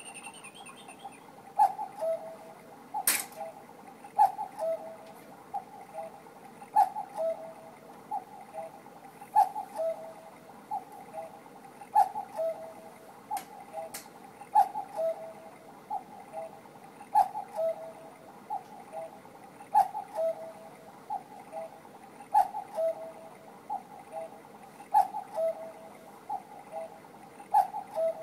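Handmade wooden cuckoo clock calling repeatedly, each call a higher note dropping to a lower one, about every second and a half, over the clicking of its works. There is one sharp knock about three seconds in.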